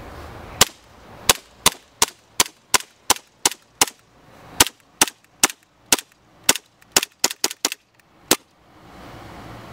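Airsoft guns firing a string of about twenty sharp shots, mostly two or three a second and quicker near the end, stopping about a second before the end.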